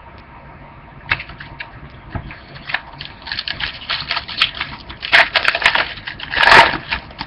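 Trading cards and foil pack wrappers being handled: a run of crinkles and clicks, busier in the second half, with a louder, longer crinkle about six and a half seconds in.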